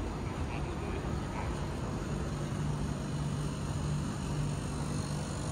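Steady low hum of vending machine cooling units over a constant background rush, the drone growing stronger about two seconds in as the machines come close.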